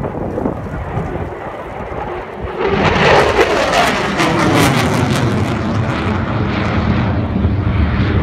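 F-16 fighter jet flying past overhead. Its jet noise builds sharply about two and a half seconds in and stays very loud, its pitch sliding downward as it passes.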